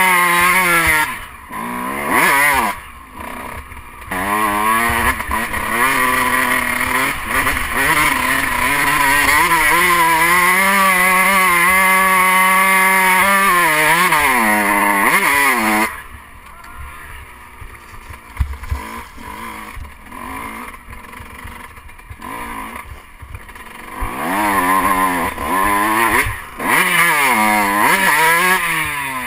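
Dirt bike engine revving hard under load up a steep dirt hill, its pitch wavering with the throttle. About halfway through it drops suddenly to a much quieter low running, then revs up in rising sweeps again near the end.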